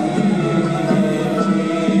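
Sufi sema ceremony music for the whirling dance: chanting voices on long, steady held notes.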